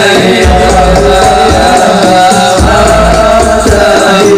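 Amplified sholawat devotional singing: a male voice singing long, wavering held notes over frame drums and a repeated deep drum beat.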